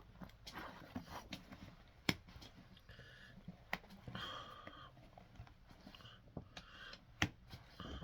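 Hand tools working on a boot during resoling: scattered sharp clicks and knocks, with soft scraping and rustling between them.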